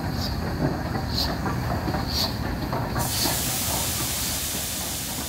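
Steam locomotive running, a low rumble with short regular puffs about once a second. About three seconds in, a loud steam hiss starts and carries on.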